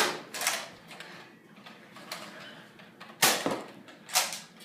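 Spring-powered Nerf Strongarm dart blasters being fired and slide-primed: sharp pops and clacks, two close together at the start, two more about three seconds in and one near the end.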